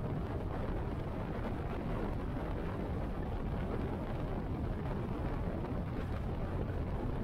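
Cruiser motorcycle riding at steady highway speed: a constant rush of wind and low engine and road noise, with no change in pace.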